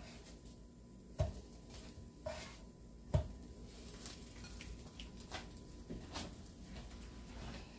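Plastic spatula knocking and scraping in an electric skillet as French toast is turned: two sharp knocks about a second and three seconds in, a lighter one between, and a few soft clicks after.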